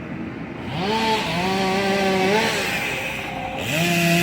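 Gas chainsaw revved up to full throttle twice. Each time the engine note climbs, holds steady for a second or so, then drops back.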